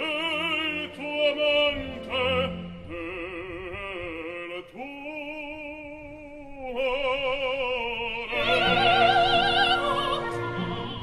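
Operatic singing with a wide vibrato on long held notes, over classical instrumental accompaniment.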